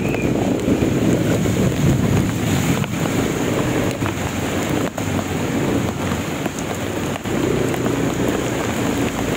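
Heavy rain pouring onto a flooded street, with wind buffeting the microphone.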